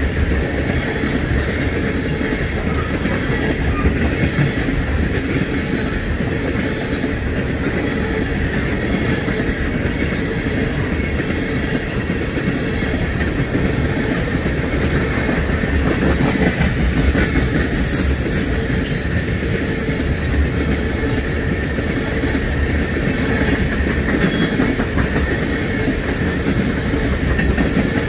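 A train's cars rolling past at a steady pace: a continuous rumble of steel wheels on rail with clicking over the rail joints and a faint, thin wheel squeal.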